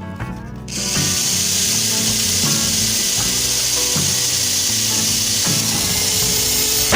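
A power tool runs steadily on the stainless steel burner body: a harsh, even noise that starts about a second in and stops abruptly near the end.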